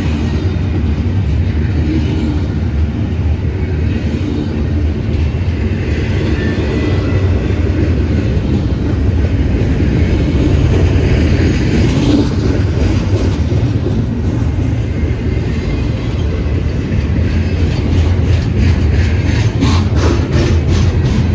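Train cars rolling past on the rails with a steady, loud rumble. A quick run of wheel clicks comes near the end.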